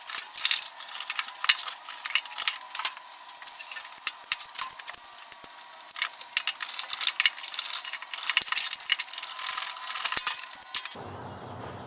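Small metal hand tools and parts clinking and rattling in irregular sharp clicks, as bolts are worked loose on the truck's front end.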